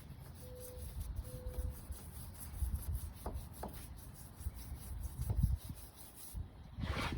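Faint scrubbing of a toothbrush working baking soda paste onto a car battery terminal, over a low uneven rumble.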